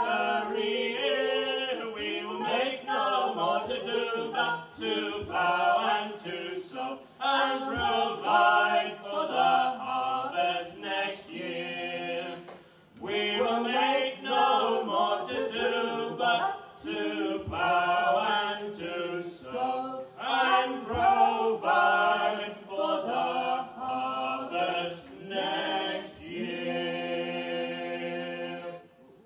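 Unaccompanied English folk song sung in four-part harmony by a mixed group of men and women. There is a short break between lines about halfway through, and the song ends on a long held final chord near the end.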